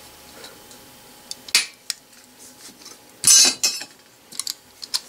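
Metal clicks and clinks of a hand-held lever hole punch being handled and set on a brass piece, with one louder, sharp metallic clack about three seconds in and a few lighter clicks after it.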